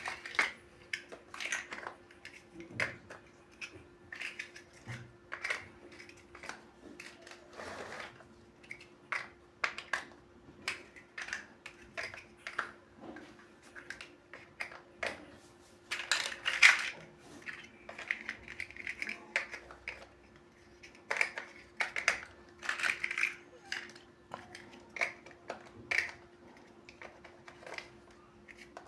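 Plastic building bricks being handled and pressed together: irregular small clicks, taps and rattles, with a louder clatter about halfway through, over a faint steady hum.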